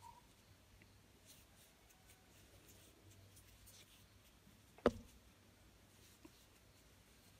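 Faint scratching and ticking of a metal crochet hook drawing yarn through double crochet stitches, with one sharp click about five seconds in.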